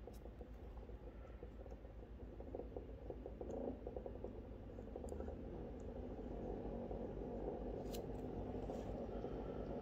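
EcoTech VorTech MP10 QuietDrive propeller pump running underwater in an aquarium, its motor hum and churning water growing louder as the speed is stepped up on its controller. A few faint clicks come from the controller's buttons.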